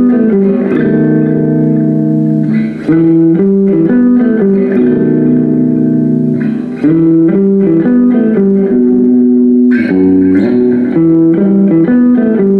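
Electric guitar playing a walking single-note riff with the notes left ringing into each other, the same phrase repeated about every four seconds.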